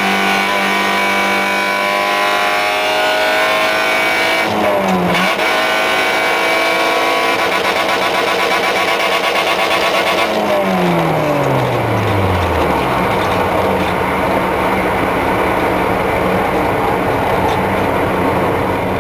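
Fiat Seicento rally car's engine heard from inside the cabin, revving hard under acceleration with the pitch climbing, a quick upshift about four and a half seconds in, then climbing again. About ten seconds in the revs fall away as the driver comes off the throttle, leaving steadier engine and road noise.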